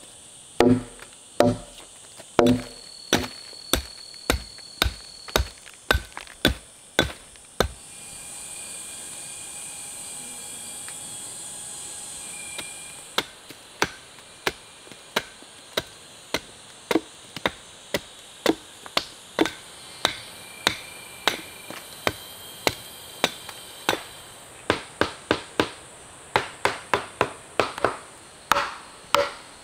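Repeated chopping strikes of a tool on wood, about two a second, each a sharp knock. They pause for about five seconds near the middle, where a steady hiss is heard, then resume and quicken near the end.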